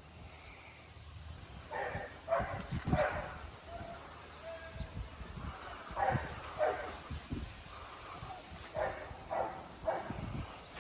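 A dog barking, short falling barks in clusters of two or three, over a faint low rumble.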